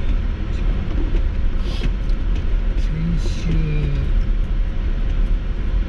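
Car driving, a steady low rumble of road and engine noise heard inside the cabin, with the driver's voice briefly about halfway through.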